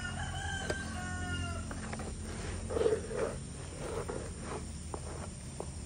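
A rooster crows once, a single long crow of a little under two seconds that falls slightly in pitch. A few short clucks follow.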